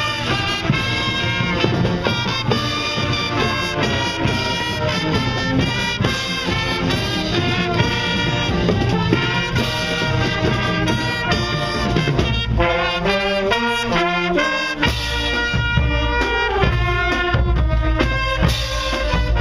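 High school marching band playing a tune on the march: trumpets, trombones, saxophones and clarinets in a loud brass-led melody. The low end grows heavier about fifteen seconds in.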